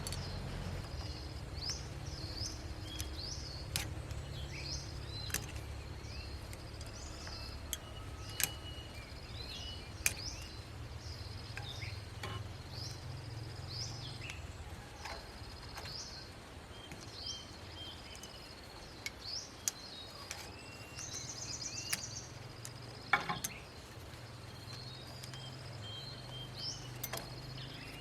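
Small birds chirping over and over with short sweeping calls, over a steady low hum, with scattered sharp clicks or taps.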